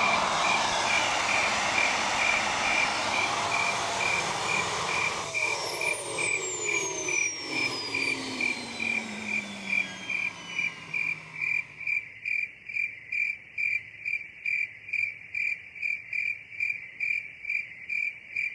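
TS-21 turbostarter gas turbine, run as a small jet engine on degreaser, spooling down: the roar fades and its high whine falls steadily in pitch over several seconds until it dies away. A high chirp repeats about twice a second throughout and is left alone at the end.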